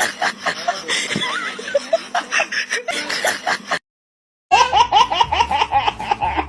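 Scattered clicks and short sounds, then a sudden brief dead silence, then a person laughing in a quick run of short laughs.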